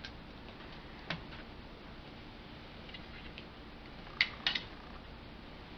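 A few light handling clicks and taps as a contact-cleaner spray can with an extension straw is worked around a stereo preamp's metal chassis. The two loudest clicks come close together a little past four seconds in.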